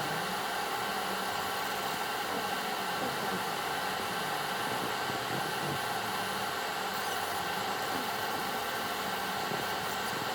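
Laser engraving machine running: a steady, even hum and fan-like hiss with a few constant tones, unchanging throughout.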